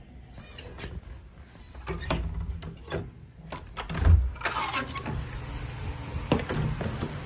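Scattered clicks and knocks from handling, then a brass lever door handle pressed and a wooden door opened about four seconds in: a low thud with the latch clicking, followed by a short scraping rush.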